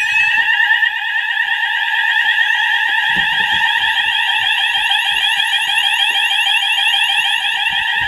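Fire alarm sounders going off together after a smoke detector was set off with test spray: steady alarm tones with a fast, repeating sweeping tone over them.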